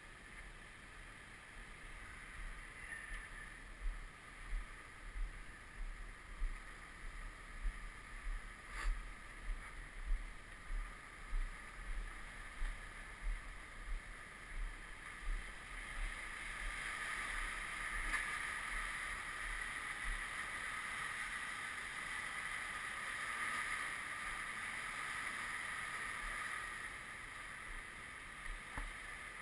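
Lake water washing against a flooded shore. Through the first two-thirds a run of low thumps comes about one and a half times a second; after that the washing grows louder and steadier.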